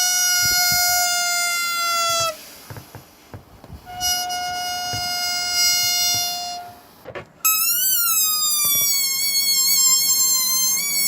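Air escaping from rubber balloons through a stretched neck, making high squeals. A steady squeal lasts about two seconds and falls slightly as it cuts off, then a second steady one follows after a short pause. Near the end a higher squeal starts whose pitch wavers up and down.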